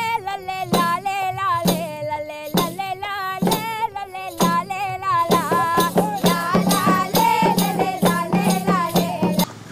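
Intro music: a melody with strong vibrato over percussion. The beat is slow at first and quickens about halfway through, and the music stops just before the end.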